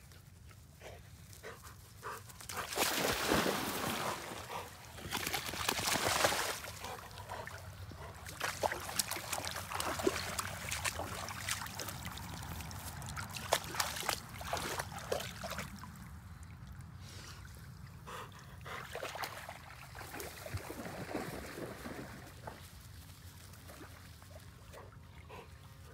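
Water splashing and sloshing in irregular bursts, the loudest about three and six seconds in, with many small splashes after that.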